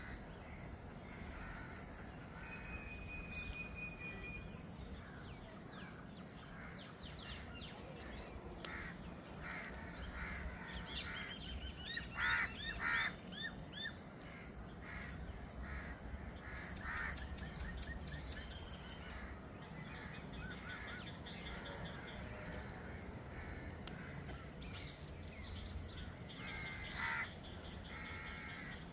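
Several birds chirping and calling over steady low background noise, with the loudest calls about twelve seconds in and again near the end.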